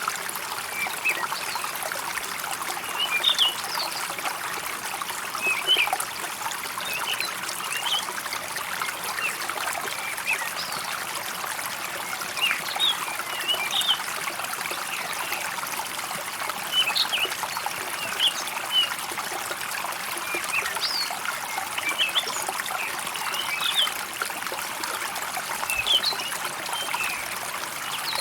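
A steady trickle of running water, with birds chirping in short clusters every two to three seconds.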